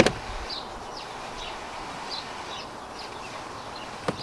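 Rubber door weather strip being pressed back onto the car's door frame by hand: a sharp knock at the start and a smaller one near the end. Small birds chirp with short high notes in the background.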